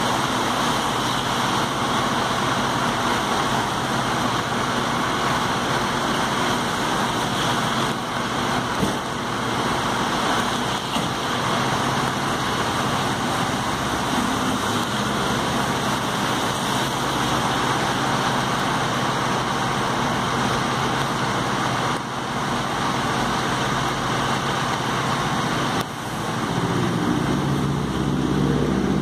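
Fire truck engines running amid steady city traffic noise, with a truck engine accelerating near the end.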